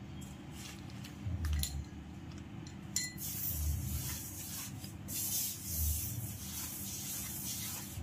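A few light clinks as salt is spooned from a small bowl, the sharpest ringing briefly about three seconds in. Then a hand rubbing and mixing dry rice flour in a stainless steel bowl makes a dry swishing rustle that comes and goes in strokes.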